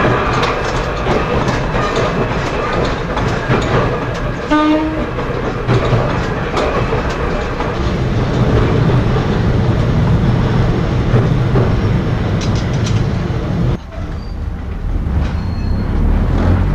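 KUMOHA 42 vintage electric railcar running along the line, heard from inside: a steady rumble with rail-joint clicks. A short horn blast sounds about four and a half seconds in, and the running noise drops and goes quieter about three seconds before the end.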